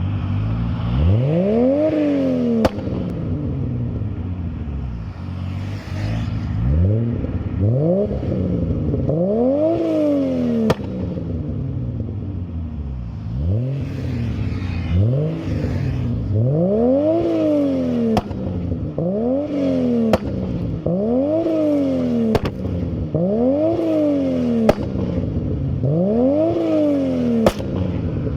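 Nissan RB25DET turbocharged straight-six on a single turbo with a Greddy exhaust, being blipped in about ten quick free revs, each rising and falling in pitch, with a steady lumpy idle between them. Several revs end in a sharp single crack as the throttle closes.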